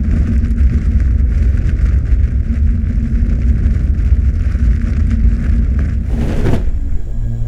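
A loud, steady low rumble with hiss over it, ending in a short falling whoosh about six seconds in; music with held tones comes in just after.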